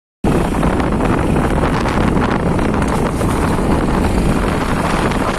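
Heavy rain pouring down, a loud, steady downpour with a dense crackle of drops.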